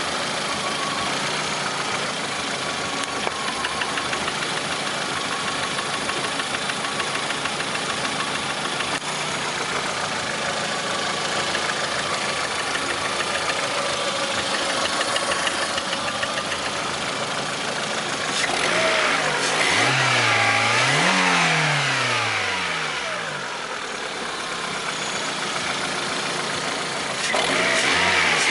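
Lada Priora's 21126 1.6-litre 16-valve four-cylinder engine idling with a knock. It is revved up and back down about two-thirds of the way through, and revved again near the end.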